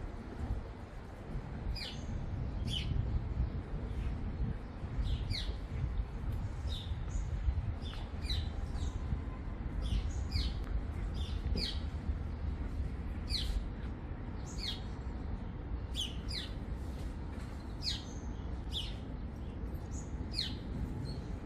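Small birds chirping: short, sharp calls that sweep down in pitch, coming irregularly about once a second, over a steady low rumble.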